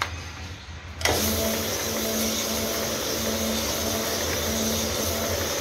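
Valve-seat polishing machine on an engine cylinder head starts up about a second in and runs steadily, its motor humming with a grinding hiss as it polishes a valve seat.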